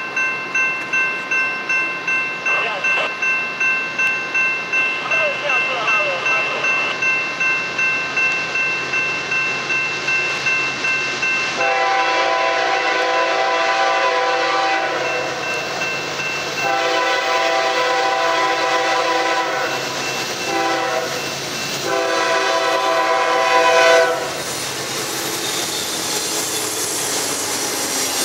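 A grade-crossing bell rings steadily at about two strokes a second. About twelve seconds in, the lead Norfolk Southern GE ES40DC diesel locomotive's air horn sounds the grade-crossing signal: long, long, short, long. Near the end the horn stops and the GE diesel locomotives pass, their engines and wheels on the rails giving a steady rumble.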